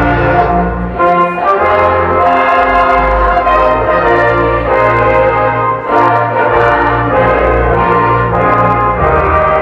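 Instrumental music for a women's choir: held melody notes that change about once a second over a steady bass line.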